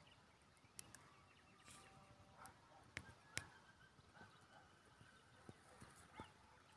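Near silence, broken by a few faint, sharp clicks; the two loudest come close together about three seconds in.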